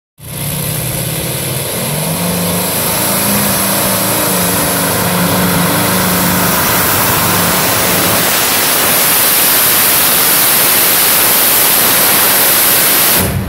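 Wright R-3350 18-cylinder radial aircraft engine on alcohol injection, running very loud at full power as the pulling tractor drags the sled down the track. The sound cuts off sharply near the end.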